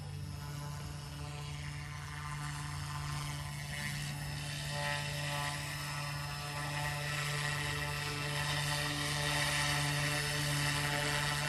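Goosky S2 micro RC helicopter hovering: the steady whine of its electric motors and the buzz of its spinning rotor blades, getting a little louder toward the end.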